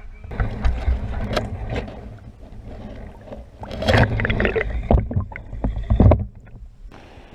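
Water splashing and sloshing around a waterproof action camera as it is dipped in and out of the pond surface beside a largemouth bass being released, with a muffled underwater rumble. Irregular splashes, the loudest about four seconds in and again about six seconds in, then it settles.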